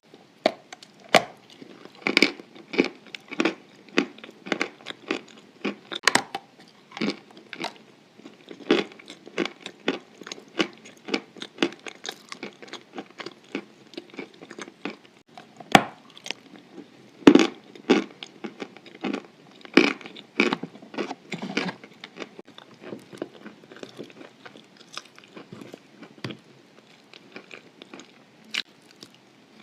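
A person chewing chalk coated in white clay paste, close to the microphone: a long run of sharp, crisp crunches, several a second, that grows sparser near the end.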